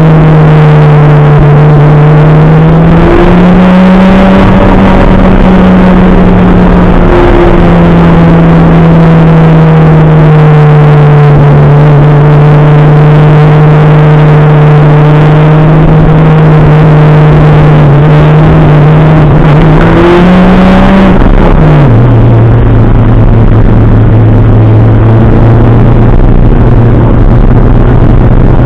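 Toyota Celica ST185's turbocharged 2.0-litre four-cylinder engine under way, heard loud from inside the stripped, roll-caged cabin. Its pitch steps up about three seconds in and back down a few seconds later, then holds steady. Near the end it rises briefly and then drops sharply to a lower, steady note.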